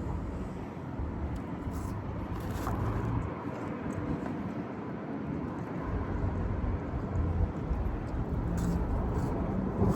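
Low, steady rumble of a car, with a few faint clicks.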